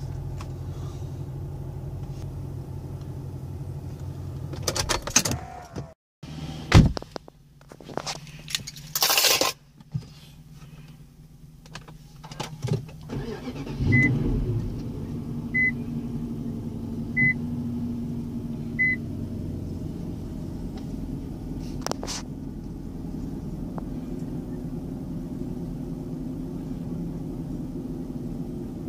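Heard from inside the cabin, a car engine idles and then breaks off about 6 s in, followed by a few seconds of clunks and handling noises. About 14 s in, a 2008 Infiniti M45's 4.5-litre V8 starts cold and settles into a steady fast idle, with four short beeps of a chime about a second and a half apart.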